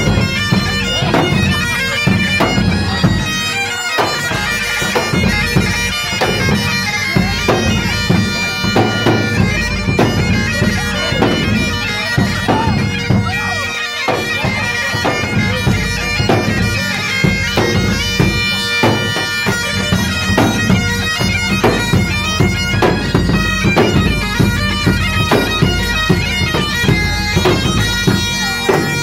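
Live bagpipe music: pipes play a tune over a steady drone, with a regular drumbeat underneath.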